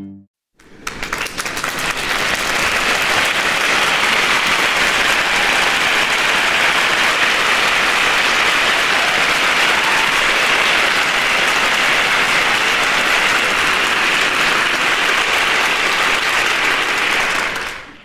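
Applause: a dense, steady clatter of many small claps that fades in just after the start and fades out near the end.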